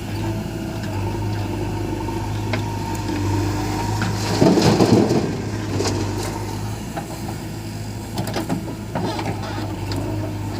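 Diesel engine of heavy earth-moving machinery running steadily with a low hum, with a louder rough rush of noise about four and a half seconds in that lasts about a second.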